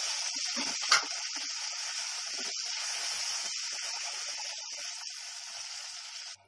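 Tomato purée, whole spices and green chillies sizzling steadily in hot oil in a kadhai while being stirred with a wooden spatula, with a single sharp knock about a second in. The sizzle cuts off suddenly near the end.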